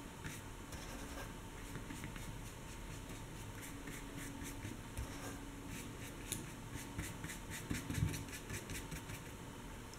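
Large flat paintbrush brushing wet watercolour across paper: a run of faint, soft scratchy strokes, with a light knock just before eight seconds in.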